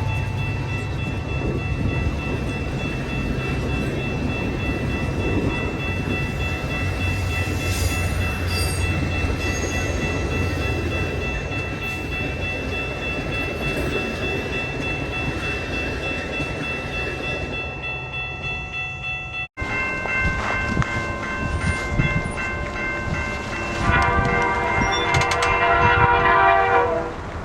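Canadian Pacific Holiday Train passing: a diesel locomotive rumbles under a held, chord-like train horn. The sound breaks off abruptly about two-thirds of the way through, then the horn resumes, louder, near the end.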